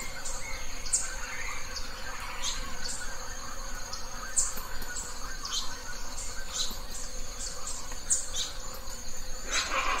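Brief high-pitched bird chirps, scattered about once or twice a second, over a steady thin high insect drone.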